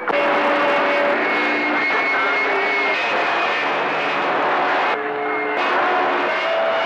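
CB radio receiver on channel 28 hissing with open-band static between transmissions, with several steady whistling tones at different pitches that come and go, typical of distant carriers beating against each other during skip. The upper hiss briefly drops out about five seconds in.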